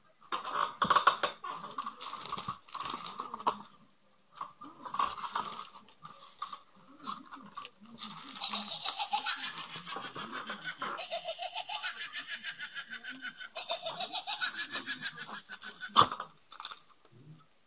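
A person laughing: scattered bursts of giggling, then a long run of rapid, evenly repeated laughter. A single sharp knock near the end.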